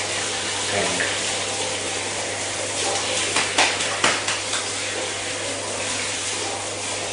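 Water running steadily as a dog is bathed, with a low hum underneath and a few brief clatters about three to four seconds in.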